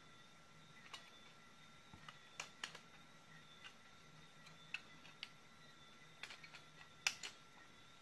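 Faint, scattered clicks and taps of the battery pack's plastic cell holder and metal terminals being handled and pried apart by hand. The loudest are two sharp clicks close together about seven seconds in.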